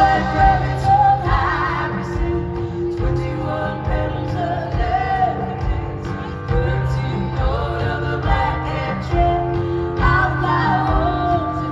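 Live band music with a sung vocal melody, the held notes wavering with vibrato over a steady bass.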